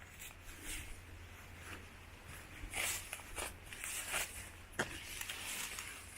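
Footsteps of a hiker walking on a woodland trail: irregular scuffs and crunches, a few louder ones about three and four seconds in, over a faint low rumble.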